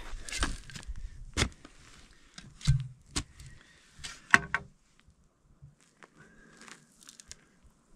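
Scattered sharp knocks and scrapes of boots and hands moving dry, stony soil, filling in a trench over a water pipe.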